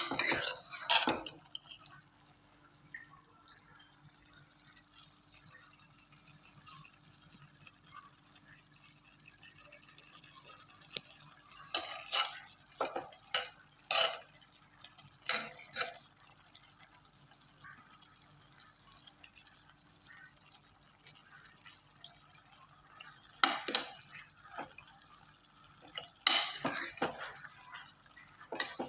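Kitchen work sounds: scattered clinks and knocks of utensils against pots and dishes, in clusters about twelve seconds in and again near the end, with a faint steady background between.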